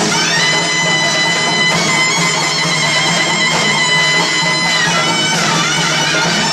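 Taepyeongso, the Korean double-reed shawm, playing a long held high note that wavers and bends in pitch as it starts and again near the end, over a steady low hum.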